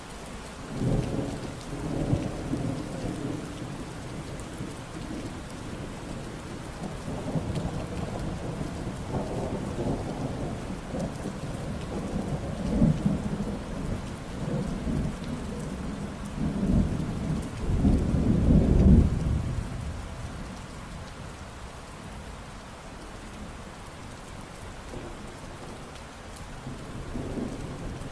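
Steady rain falling, with thunder rumbling low in repeated waves through the first two-thirds, loudest about two-thirds of the way in. Near the end there is rain alone with one faint rumble.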